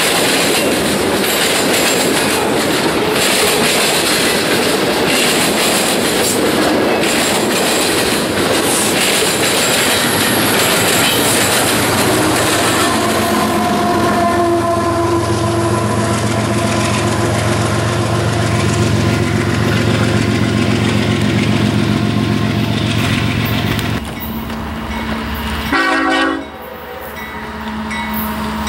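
A Union Pacific freight train's cars rumble and clatter past close by. Then a mid-train diesel locomotive goes by with its engine running in a steady low hum. After a break there is a short horn blast, and then the low hum of another train's locomotives approaching.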